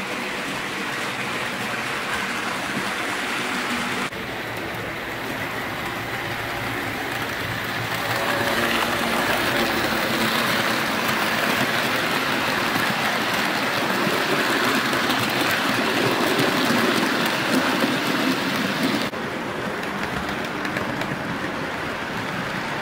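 HO-scale model freight train running on the track: the metal wheels of the wagons give a steady, rain-like rolling clatter on the rails. It grows louder from about eight seconds in, while the wagons pass close by.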